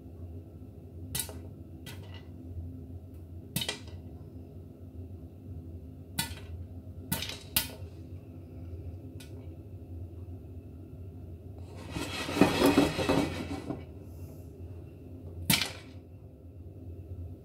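Popcorn kernels popping now and then in a covered pan with a glass lid, the popping only just getting going: about eight single sharp pops, with a denser, noisier stretch of about two seconds some twelve seconds in, over a low steady hum.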